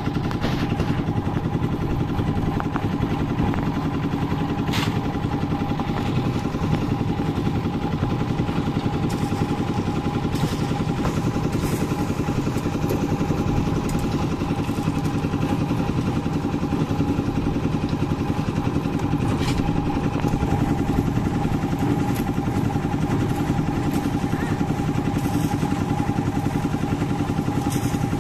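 Portable tilting-drum concrete mixer running steadily while mixing footing concrete, with a few sharp knocks along the way.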